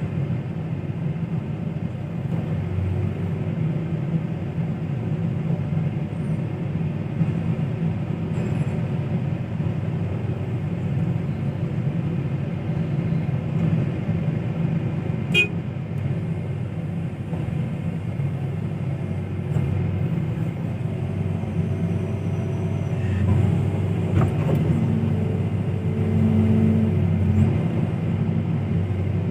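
Heavy engine running steadily with a low rumble; faint higher tones come in over the last third, and there is a single sharp click about halfway through.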